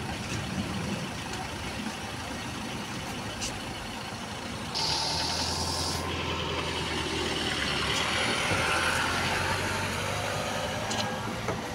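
Street traffic: minibus diesel engines idling, with a sudden hiss of compressed air about five seconds in, like an air brake releasing. This is followed by a swelling whine with a wavering pitch as a BKM 321 trolleybus's electric drive approaches.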